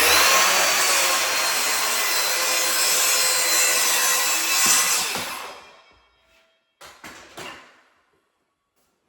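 Power saw cutting through the bottom of a wooden door frame to shorten it to height, running steadily for about five seconds and then winding down. A few light knocks and rattles follow.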